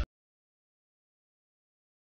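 Total silence with no sound at all, after a loud sound cuts off abruptly at the very start.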